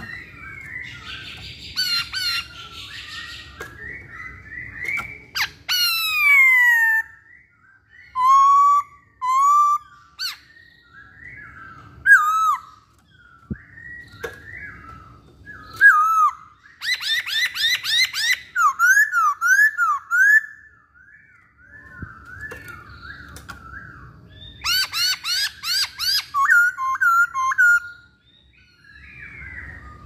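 Black-throated laughingthrush singing a long, varied song of clear whistled phrases. It includes long falling glides and fast runs of repeated notes.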